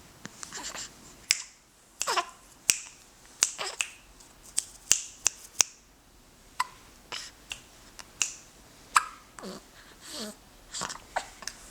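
A one-month-old baby hiccuping: many short, sharp hiccups at irregular intervals, often several a second, a few of them with a brief squeak that drops in pitch.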